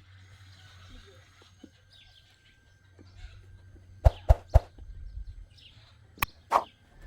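Birds chirping faintly, then sharp knocks: three close together about four seconds in and two more about six seconds in.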